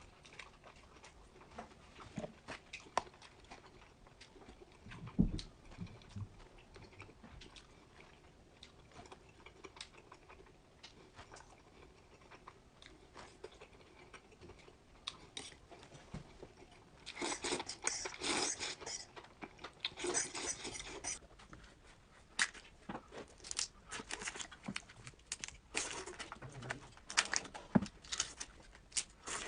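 Close-miked chewing and biting: scattered wet clicks and crunches, with two denser spells of loud crunching past the middle.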